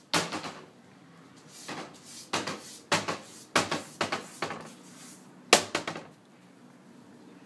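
Wooden kitchen cabinet door banged open and shut against its frame, again and again, by a cat inside the cupboard. About eight sharp knocks, each with a short clatter, come in uneven groups. The loudest comes a little after five seconds, and the banging stops soon after.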